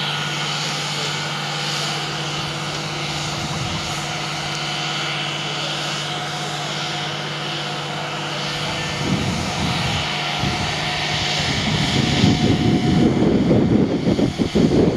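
Class 66 diesel locomotive's two-stroke V12 engine running steadily at a distance, a low, even drone. After about nine seconds a rougher, louder, uneven rumble comes in and grows near the end.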